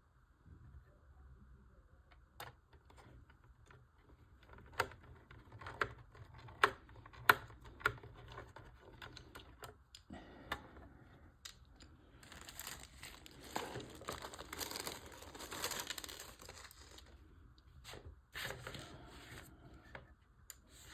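Plastic packaging crinkling and tearing as model-kit parts are unpacked, with a handful of sharp clicks of small plastic parts being handled before it.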